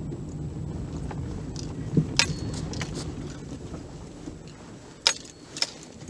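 A 2011 Ford Edge's 3.5-litre V6 idling, heard from inside the cabin as a steady low hum that slowly fades, with a few sharp clicks and rattles about two seconds in and twice near the end.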